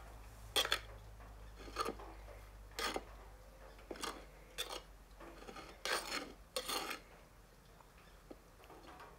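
Metal spoon scraping and clinking against a glazed clay bowl while stirring chopped onion and cheese, a short scrape every half second to second, tailing off near the end.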